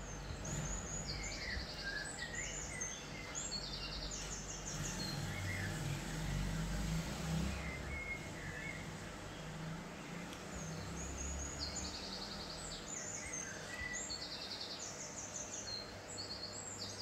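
Small birds chirping in short, rapid, high trills, in two spells with a pause in the middle, over a low background rumble.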